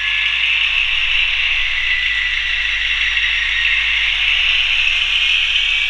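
An N-scale model of an SNCF CC 72000 diesel locomotive pulling away with its coaches, giving a steady whirring, rattling noise with a thin rising whine near the end.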